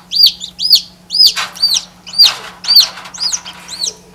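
Newly hatched chicken chicks peeping: loud, high peeps that each rise and fall in pitch, about two a second, with other peeps overlapping in the middle. A faint steady low hum runs underneath.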